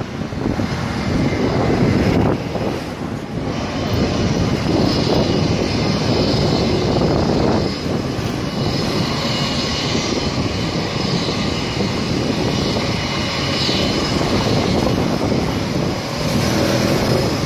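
Jet airliner's engines running as it moves along the runway to depart: a steady loud rush with a high whine that comes in about halfway through.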